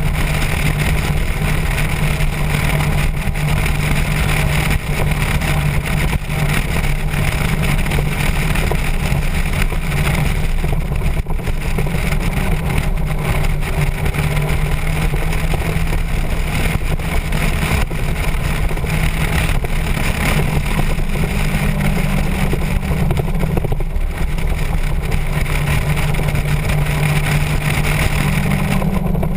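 Motorcycle engine running steadily under way, with a constant low drone and wind rushing past; the engine note steps up slightly about two-thirds of the way through and again near the end.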